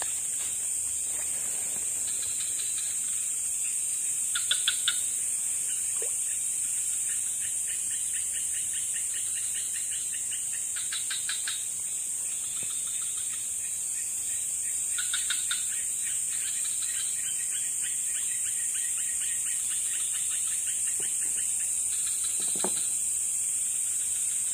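Night chorus of crickets and other insects: a steady high-pitched trill, with runs of rapid pulsed calls that come and go, the loudest a few seconds in.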